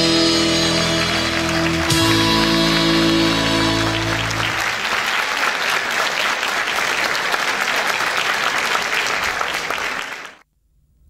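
A folk music ensemble holding its final notes while the audience is already clapping; the music stops about four and a half seconds in and applause carries on alone, then cuts off abruptly near the end.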